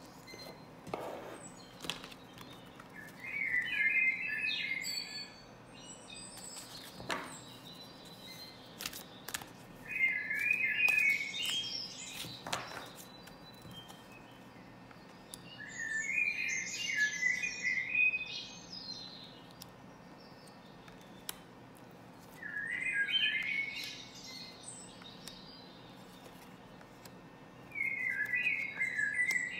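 A songbird singing short chirping phrases about two seconds long, repeating roughly every six seconds. Between the phrases come a few soft clicks and taps as the cards are handled and laid down.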